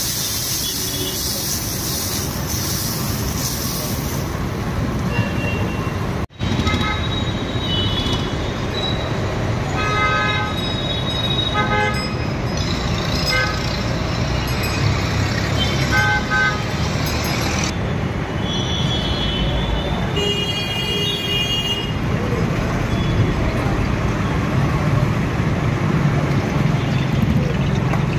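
Roadside street din with vehicle horns tooting in many short blasts through the middle stretch. A hiss fills the first few seconds, and the sound breaks off for a moment about six seconds in.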